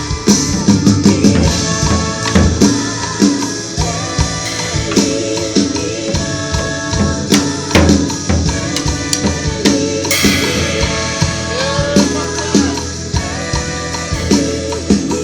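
Music with drums and percussion over held pitched instruments, with frequent sharp hits throughout.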